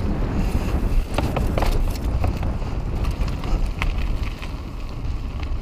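Wind buffeting a helmet-mounted action camera's microphone while a mountain bike is ridden along a trail, with a steady low rumble of tyres and a few sharp clicks and rattles from the bike.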